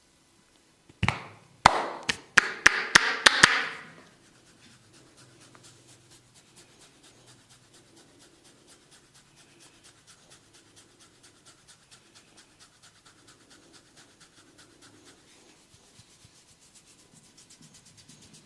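A barber's hands working a client's head and hair in a head massage: about a second in, a quick run of about eight sharp cracks over some three seconds, then faint, rapid scratching and rubbing of fingers through the hair and scalp.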